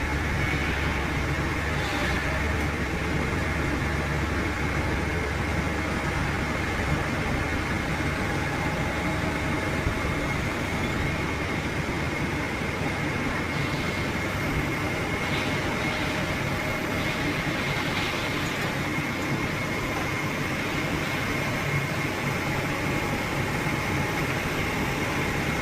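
Heavy machinery running steadily: a low engine rumble with a thin, steady high whine and a few faint knocks.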